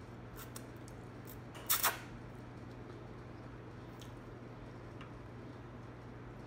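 Pancit noodles slurped into the mouth in a short, loud double slurp about two seconds in, followed by faint wet chewing and lip sounds.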